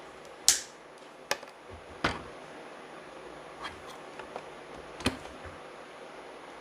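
Scattered sharp clicks and light knocks of hands working wires into a vacuum cleaner's housing, about five in all, the loudest about half a second in.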